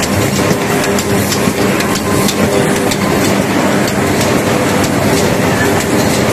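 Paper mailer bag-making machine running: a steady mechanical clatter of many quick, irregular clicks over a low hum.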